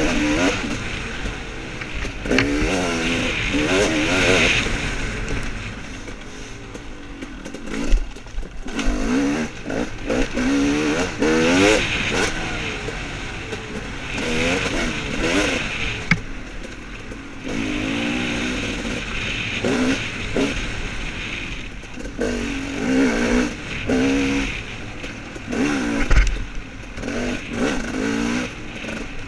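Dirt bike engine revving up and down again and again as it rides a rough woods trail, with knocks and clatter from the bike over the terrain, the sharpest about eight seconds in and again near the end.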